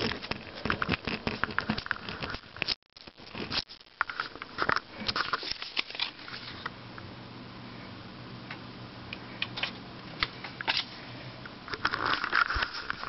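Camera handling noise: fingers rubbing and tapping on the camera near its microphone, a dense run of crackles and rustles for about six seconds. After that a steady low hum with occasional clicks, and more rubbing near the end.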